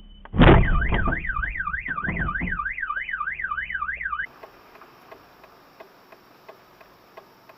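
A car bumping into the back of a box truck: a single heavy thud, followed at once by a car alarm wailing up and down about four times a second. The sound cuts off abruptly a little past four seconds, leaving only faint regular ticks.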